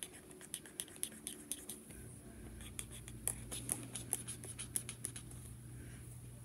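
Drawing strokes on paper: a run of irregular light clicks and scratches, several a second. A low steady hum comes in about two seconds in.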